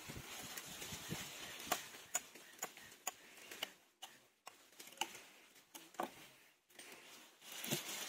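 Scattered light clicks and knocks over a faint hiss: a run of them about half a second apart, then single ones a second or more apart.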